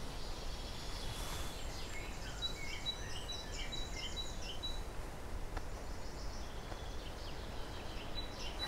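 Wild birds singing in spring woodland: one bird gives a quick run of about seven short, high, evenly spaced notes in the middle, among scattered other chirps, over a steady low rumble.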